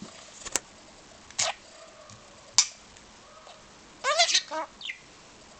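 Budgerigar calling in agitation: three short, sharp squawks about a second apart, then a rapid burst of warbling chatter about four seconds in, ending on a falling note.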